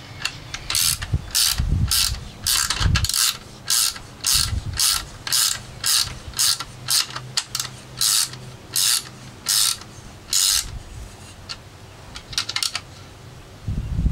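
Small hand ratchet clicking in short strokes, about two a second, as it turns a screw. The strokes stop after about ten and a half seconds, leaving a few scattered clicks.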